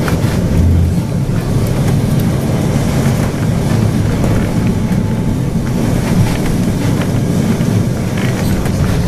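Lisbon tram 28's vintage-style electric tram running along its street track, heard from inside the front cab: a steady low rumble with frequent clicks and rattles of the car body and wheels.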